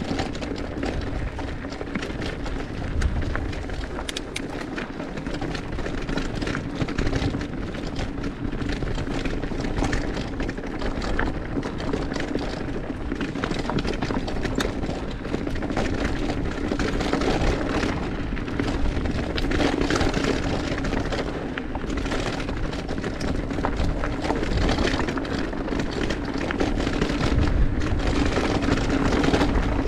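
Mountain bike riding down a dirt trail: continuous tyre and trail noise with many short rattles and knocks from the bike over bumps.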